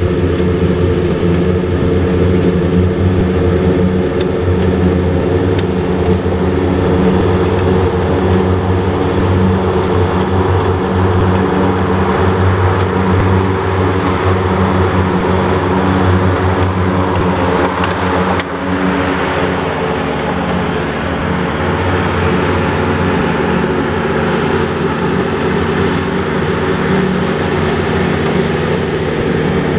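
Jacobsen HR9016 wide-area rotary mower mowing: its diesel engine runs steadily under the whir of the cutting decks. The whir grows louder as the mower comes near, and the sound changes suddenly a little past the middle as it turns away.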